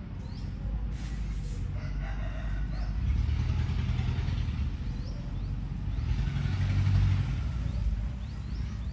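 Rooster crowing, with a low vehicle engine rumble underneath that swells twice, and small birds chirping briefly.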